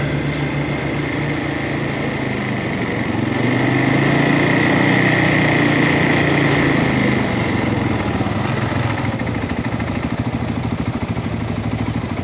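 CFMOTO ATV engine running on the trail, louder for a few seconds, then easing back to a slower, evenly pulsing throb near the end, with a steady high whine over it.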